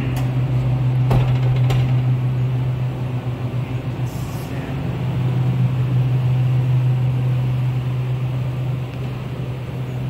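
A steady low mechanical hum, with a couple of light clicks about a second in.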